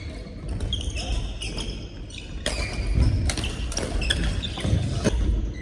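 Badminton rally: sharp racket strikes on the shuttlecock, several in quick succession in the second half, with shoes squeaking and thudding on the wooden court floor, echoing in a large hall.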